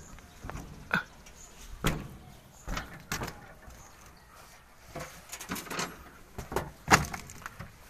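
Irregular knocks, clicks and clunks of metal being handled on a truck-mounted crane's body and panels, with the loudest clunk about seven seconds in.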